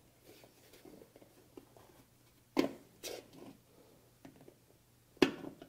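Needle-nose pliers gripping and bending up a sheet-metal locking tab on a dryer's heater housing, the tab that keeps the mica heater from rotating out of place. Light scrapes and ticks of steel on steel, with sharp clicks about two and a half seconds in and near the end, the last the loudest.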